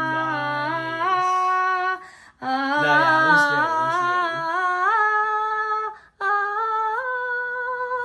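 Wordless singing: a voice holding long 'aah' notes in three phrases, the pitch stepping upward, a sung fanfare for a reveal.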